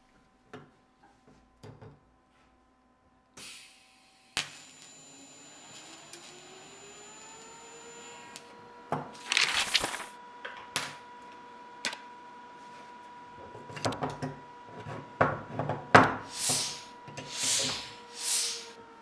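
A TIG welder switched on with a click, its hum rising in pitch for a few seconds as it spins up and then holding steady. Over it come a series of short hissing bursts, each under a second, from tack welds joining a square steel tube to a pipe.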